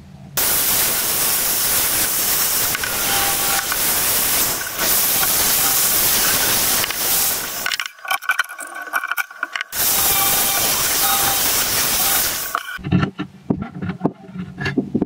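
Steel pipe being turned in a homemade screw-down pipe cutter, metal scraping steadily against metal in two long stretches with a break about eight seconds in. A few sharp metal knocks follow near the end.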